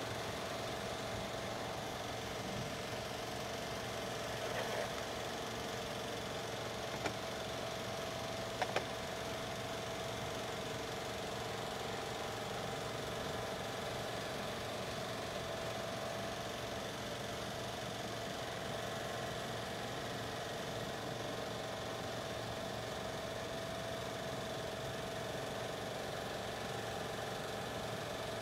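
Steady mechanical hum with a few fixed tones over an even hiss. A few faint clicks come in the first ten seconds.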